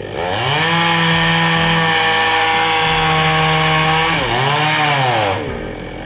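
Petrol chainsaw revved quickly from idle to full throttle and held there for about four seconds, then dipping, revving up once more, and dropping back to idle near the end.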